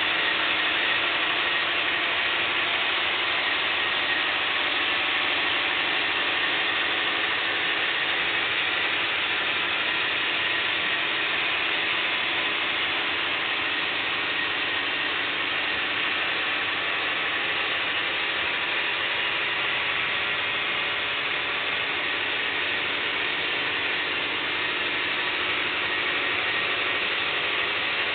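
Steady, continuous rattle of a long HO scale model freight train's wheels rolling over the track.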